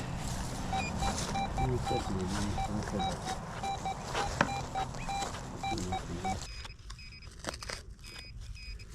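Metal detector's target signal: a rapid run of short mid-pitched beeps, about four a second, that changes to a higher, thinner beep near the end, signalling buried metal, here a live M1 carbine round. A sharp click a little past four seconds in.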